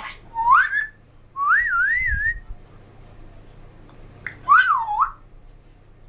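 African grey parrot whistling: three short whistles, a quick rising one, then a wavering one that swoops up and down twice, and about two seconds later a third that dips and rises.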